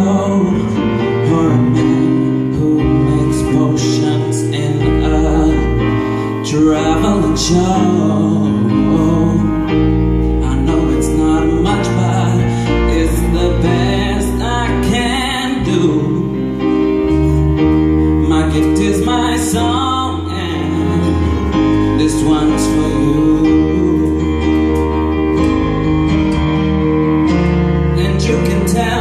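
Live band playing a song: a man singing over keyboard, electric guitar, bass guitar and drum kit.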